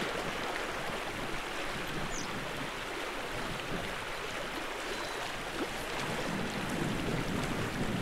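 Small gravel-bed creek rushing steadily over a shallow riffle, with gusty wind rumbling on the microphone.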